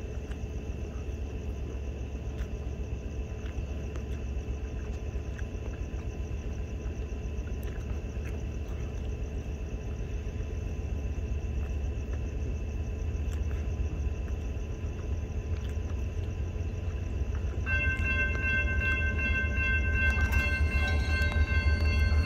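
Low rumble growing slowly louder as a Union Pacific freight train approaches. About three-quarters of the way through, the locomotive's air horn starts sounding a steady chord of several notes. Near the end the grade crossing's warning bell joins in.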